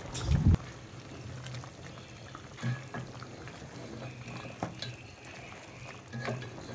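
Slotted spatula stirring pieces of mutton through a bubbling, thin yogurt gravy in a pan, with a soft knock against the pan near the start and scattered scrapes after it. Under it runs a steady low hum.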